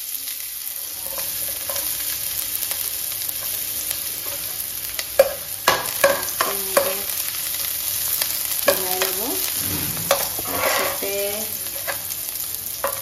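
Chopped onions frying in hot oil in an aluminium kadai, a steady sizzle, with a metal spoon stirring and scraping against the pan now and then, mostly in the second half.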